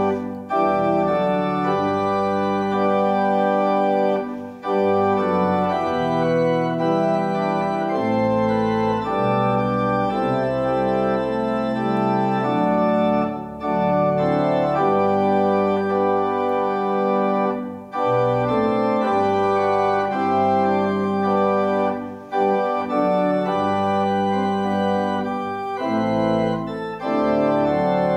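Church organ playing the closing postlude of the service: held chords in phrases, separated by brief breaks.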